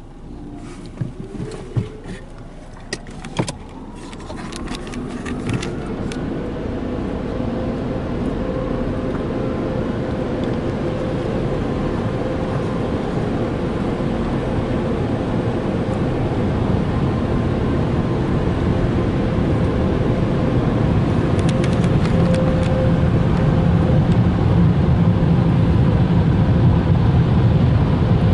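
Car wash air dryer blowers spinning up with a rising whine, then running as a steady rush of air with a hum that grows steadily louder. There are a few knocks and clicks in the first few seconds.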